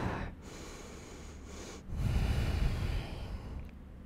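A woman breathing slowly while holding a lunge pose, with a low, soft breath about two seconds in.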